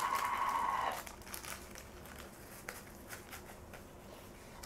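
A steady high tone stops about a second in. After it come faint clicks and rustles of small hand work: a spoon, a jar lid and chunks of cocoa butter being handled.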